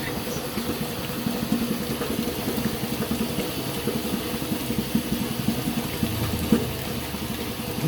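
Tofu dough (soybean slurry) bubbling and churning in a tofu cooking machine: a steady watery noise with a low rumble.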